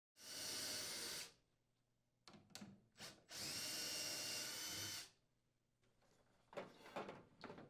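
Cordless power drill with a 5/16-inch socket running in two steady spurts with a faint motor whine, about a second and then about a second and a half, backing out mounting screws. A few clicks come between the spurts, and light handling noise follows near the end.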